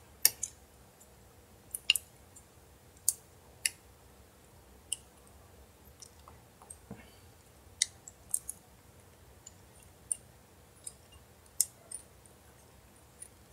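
Irregular sharp clicks, a dozen or so, from small plastic and metal LG V20 phone parts being handled and pressed into place during reassembly.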